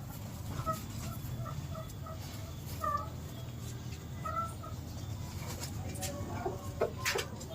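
Aseel chicken clucking softly in short repeated notes over a steady low rumble, with a few sharp clicks near the end.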